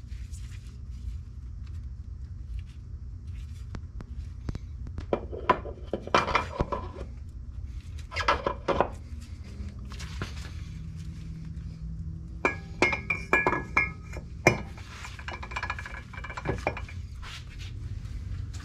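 Metal clinks, knocks and scrapes as a Polaris RZR Pro XP primary clutch is handled and worked onto its splined shaft, with short ringing metal notes about two thirds of the way through, over a steady low hum.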